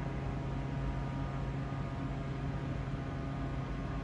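Steady low hum over an even hiss, unchanging throughout: constant mechanical background noise.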